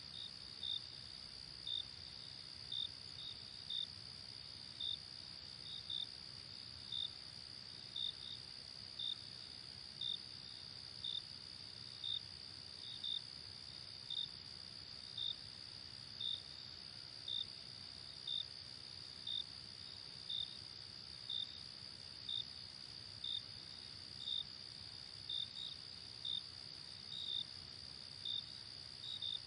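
Crickets at night: a steady high-pitched trill, with a separate chirp just below it repeating about once a second, now and then doubled.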